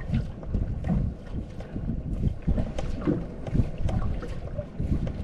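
Wind buffeting the microphone and water slapping against the hull of a small fishing boat, with irregular small knocks.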